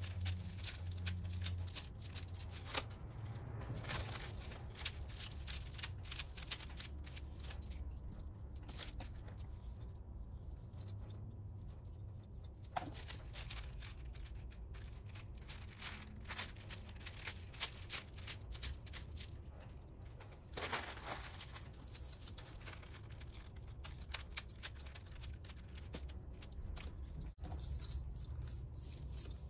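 Thin rice paper being torn by hand in many short, irregular rips, with rustling and crinkling as the sheet is handled; some edges are dampened with water, which makes it tear more easily. A low steady hum runs underneath.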